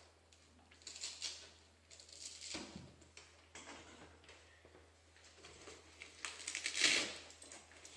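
Velcro straps on the side of a Bugaboo Cameleon 3 pram's carrycot being ripped open and refastened to tighten them: a few short rasps, the loudest and longest just under a second long about seven seconds in.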